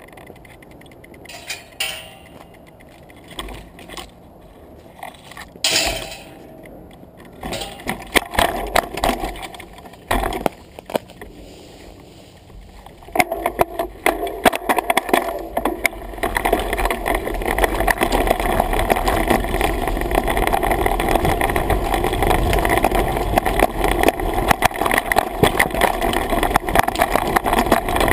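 Mountain bike riding a dirt singletrack: scattered knocks and rattles at first, then from about halfway a steady loud rush of wind and tyre rumble as the bike picks up speed.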